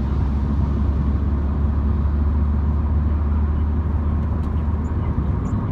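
MINI car driving, its engine and road noise making a steady low drone.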